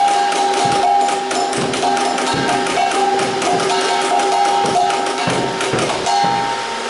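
Nerf Rival Nemesis blaster firing full-auto: the flywheel motors whine while foam balls are fed and shot in a fast, continuous clatter, the whine breaking off and resuming a few times.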